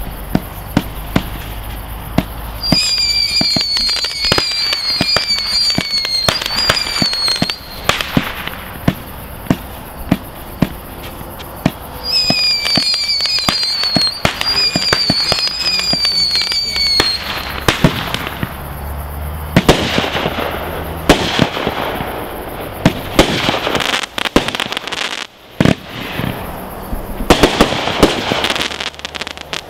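Multi-shot aerial fireworks cake firing a sequence of shots: a run of sharp launch thumps and bursting bangs, with two stretches of warbling whistles. The later shots break into crackling bursts.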